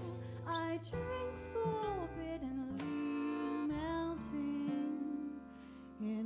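Slow live band music: a woman's wordless, sliding sung melody over double bass, drums and other instruments.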